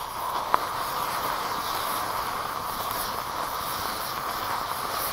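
Sodium chlorate and sugar mixture burning vigorously, a steady hiss of flame, with one sharp pop about half a second in.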